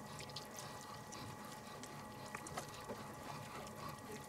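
Faint, scattered clicking from the gears of a hand-cranked vertical sausage stuffer as its crank is turned, pressing meat into a casing, over a faint steady hum.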